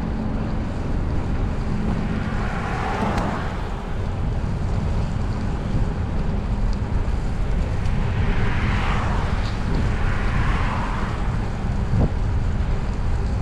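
Wind rushing over the microphone of a camera on a moving bicycle, a steady low rumble, with two brief swells of hiss about two seconds in and again around eight to eleven seconds.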